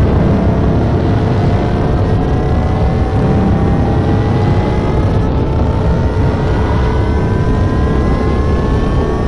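Spaceship take-off sound effect: a loud, steady engine rumble with a whine that climbs slowly in pitch.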